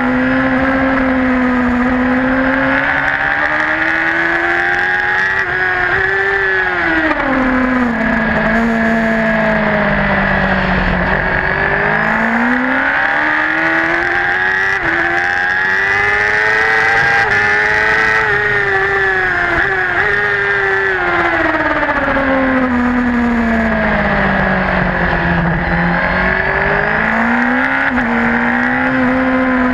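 Racing superbike engine heard from a camera mounted on the bike, revving up through the gears along the straights and dropping in pitch on the brakes into corners. The pitch climbs and falls twice, with brief dips at the gear changes.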